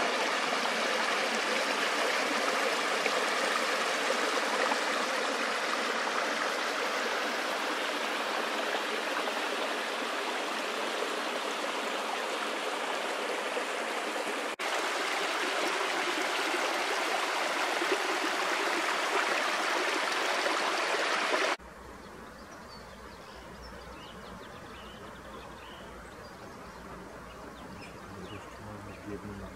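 Small mountain stream rushing and splashing over rocks and little cascades, a steady rush of water. About two-thirds of the way through it cuts off abruptly, leaving a much quieter low rumble with a few faint high bird chirps.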